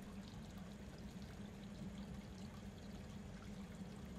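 Faint room tone: a steady low hum with an even hiss underneath.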